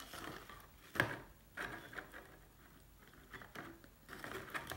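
Aluminium-foil windscreen crinkling faintly as it is handled and wrapped around a metal cook pot, with one sharp tap about a second in and a few smaller rustles near the end.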